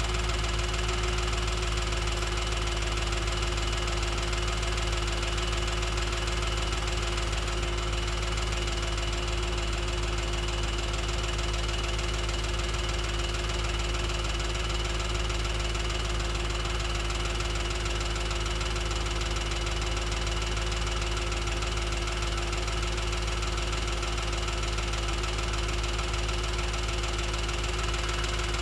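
2007 Audi S4's 4.2-litre V8 idling steadily with a ticking noise. The tick appeared after a full timing chain job and a new clutch and flywheel, and its source is not yet known.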